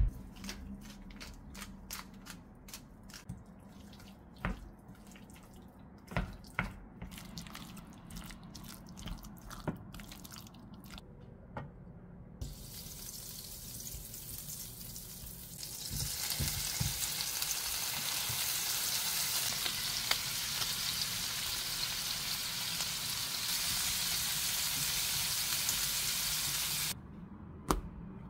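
Scattered light clicks and taps while salt is added to a tomato and lettuce salad in a glass bowl. Then butter sizzles as it melts in a square frying pan: a steady hiss that starts about halfway through, grows louder a few seconds later and stops shortly before the end.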